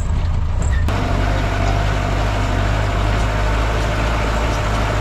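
4x4 jeep engine running steadily while the jeep drives over a rocky mountain track. About a second in, the sound changes suddenly and a steady rushing noise joins the engine hum.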